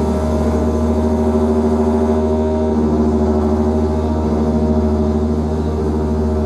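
Live drone music: a steady deep hum under several long held tones, with no beat; one of the upper tones drops out and a lower one swells about two and a half seconds in.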